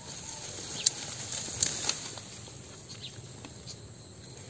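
Handling noise from a wire-mesh cage rat trap being pulled out of the grass: leaves and stems rustling, with a few short sharp clicks in the first two seconds.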